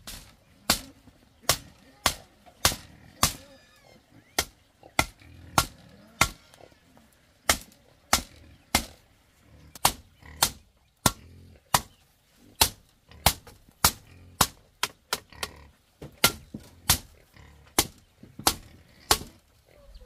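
Machete chopping bamboo: a steady run of sharp, loud strikes, roughly one every half second to a second, with short pauses now and then.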